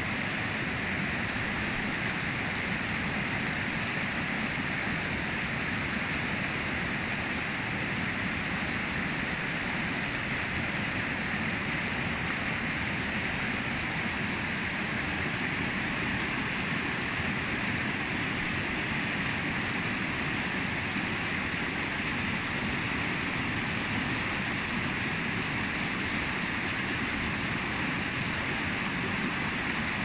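Shallow river running fast over a cobble bed, water rushing and splashing through small rapids in a steady, even hiss.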